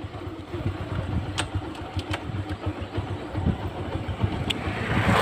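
Motorcycle running under way, heard from a helmet chin-mounted camera, with low choppy rumble and a few sharp clicks; a rush of noise swells near the end.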